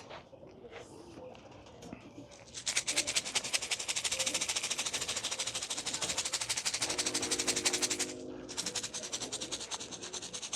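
Pigeon feed shaken in a container to call birds in: a fast, even rattle that starts about three seconds in, stops briefly near eight seconds and then carries on a little softer.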